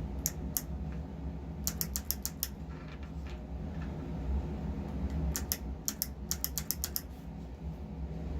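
Kailh Box Jade clicky key switch under a Cherry MX-style keycap clicking in quick irregular groups, with a steady low hum underneath.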